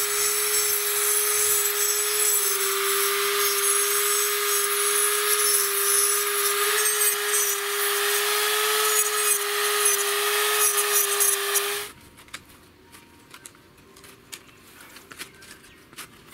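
Angle grinder with a cut-off wheel running at a steady high whine while cutting through chicken wire. It stops abruptly about twelve seconds in, followed by faint scrapes and clicks of a shovel digging soil.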